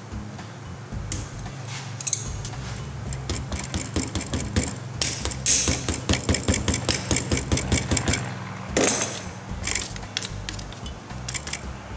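Pliers clicking and scraping on a metal CV boot clamp as its tabs are folded down, with a quick run of small metal clicks through the middle, over background rock music.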